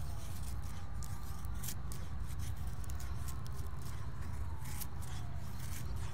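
Carbon-steel bushcraft knife blade shaving curls off a wooden stick while making a feather stick: a few short slicing strokes, spaced irregularly, over a steady low rumble.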